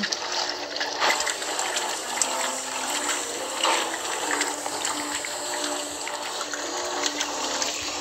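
Electrolux LTD13 top-load washing machine agitating a load in water: a steady swishing and sloshing with recurring surges.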